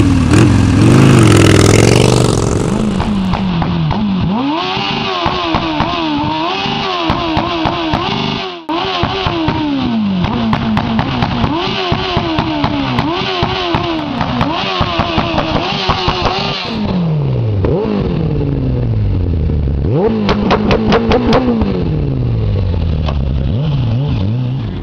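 Motorcycle engine revved again and again, its pitch swinging up and down in quick blips, after a loud rush of noise in the first couple of seconds. In the last several seconds the engine note falls in long sweeps.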